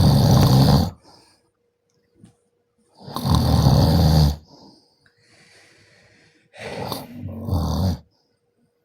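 A man snoring loudly, three snores roughly three seconds apart, the last one broken in two, with a quieter breath before it.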